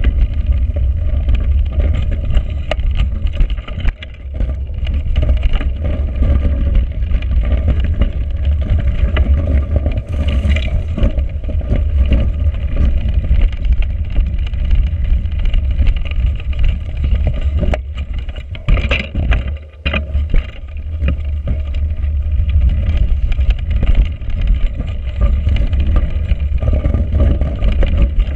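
Deep wind rumble on an action camera's microphone while a 29er mountain bike on Schwalbe Smart Sam tyres rolls over a rough, frozen trail, with frequent knocks and rattles from the bike over bumps. The sound dips briefly twice, about four seconds in and again about twenty seconds in.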